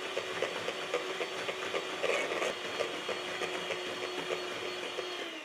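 Electric hand mixer running steadily, its beaters whipping a thick egg yolk and banana batter in a stainless steel bowl with light irregular clicks. Near the end it is switched off and the motor hum slides down as it winds down.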